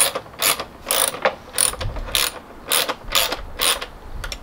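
Hand ratchet wrench with a socket being swung back and forth on a bolt, the pawl clicking in short bursts about twice a second.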